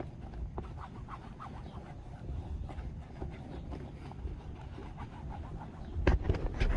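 Handling noise from the raft repair: small scattered clicks and rustles of material being worked by hand over a low rumble, with a couple of louder knocks near the end.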